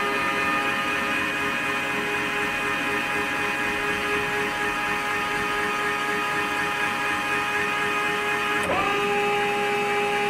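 Ladies First automatic chicken coop door's electric motor running with a steady whine as it drives the sliding door through its reopen-and-close cycle. That cycle is the door's safety routine, which lifts it partway again so a chicken caught in the doorway can get through. Near the end the whine briefly drops in pitch, then picks up again.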